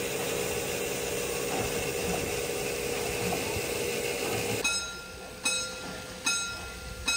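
DR class 52 steam locomotive 52 8154-8 running through a station with its train: a steady rushing noise, then, from about two-thirds in, sharp knocks with a brief ring at about one every 0.8 seconds.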